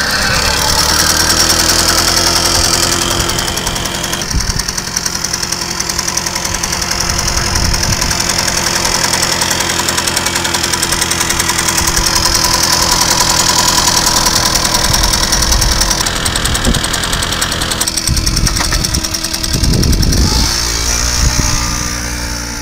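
Babetta 207 moped's 50 cc single-cylinder two-stroke engine running steadily up close, then pulling away near the end, its pitch falling as it goes.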